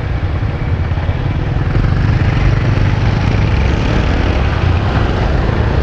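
Honda CG Fan 160's single-cylinder engine running while riding, with wind rushing over the microphone, a little louder from about two seconds in. The engine carries a new noise that the rider calls a bit loud and says is not normal.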